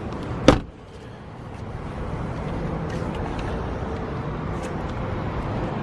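A single sharp knock about half a second in, then a steady low vehicle hum that swells slightly and holds.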